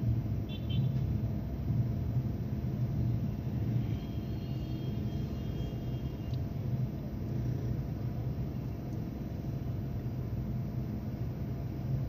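Car engine idling while stopped in traffic, a low steady rumble heard inside the cabin. Brief faint high-pitched beeps come about half a second in, and a fainter high tone runs from about four to six seconds in.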